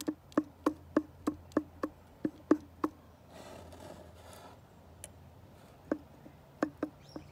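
Connecting rod knocking on its worn big end inside a Tohatsu-built 30 hp two-stroke outboard powerhead as the crank and rod are rocked by hand: a run of sharp metal clicks, about three a second, then a brief scrape and a few more clicks near the end. The knock is the play of a stuffed big-end bearing.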